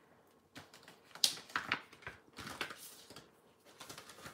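Clear plastic die packaging and black cardstock holding metal cutting dies being handled and shuffled, giving an irregular string of crinkles, rustles and light taps.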